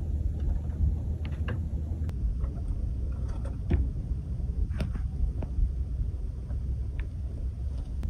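Steady low rumble of wind on the microphone, with a few faint, short clicks scattered through it.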